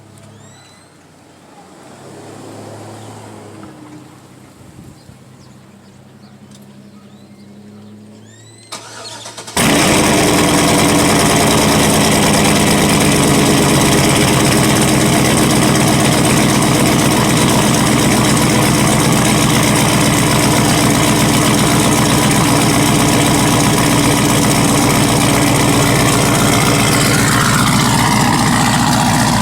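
A cammed 5.3-litre V8 in a Chevy Tahoe, straight piped through 3.5-inch exhaust with the muffler deleted, cranks briefly and fires up about nine seconds in after a quiet stretch. It runs loud at a steady cold fast idle, with the pitch easing down a little near the end.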